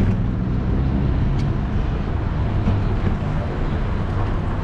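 Steady low wind rumble on the microphone of a camera riding along on a moving bicycle, mixed with city street traffic noise.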